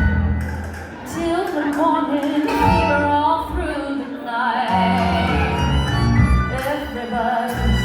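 A live band of drums, keyboard and violin playing a song: a melody line sliding between held notes with vibrato over a steady drum beat.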